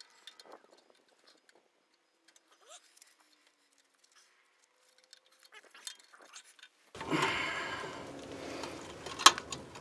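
A rear drum brake's drum being pushed on over the brake shoes: faint clicks at first, then from about seven seconds a loud rough scraping that slowly fades, with a sharp knock near the end.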